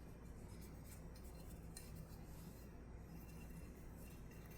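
Near silence: a low steady hum with a few faint light clicks and rubbing as a pistol slide is swabbed clean.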